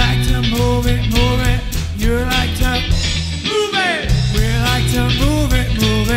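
Live soul band playing an instrumental passage: bass and drums holding a steady groove under a bending melodic line. The low end drops out for a moment about three and a half seconds in under a falling slide, then the groove comes back in. It is a live mix with a broken snare microphone.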